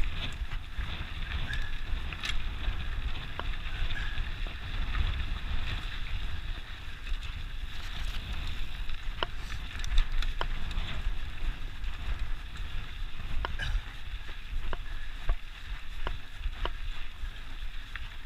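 Mountain bike rolling along a dry dirt singletrack: wind buffeting the action camera's microphone as a steady low rumble, with the hiss of tyres on the trail and scattered sharp clicks and rattles from the bike.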